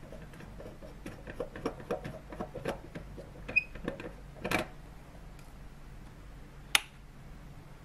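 Screw-base LED filament lamp being unscrewed from its lamp holder by hand: a run of small, irregular clicks and scrapes, then a single sharp click about seven seconds in, as from a wall switch being pressed.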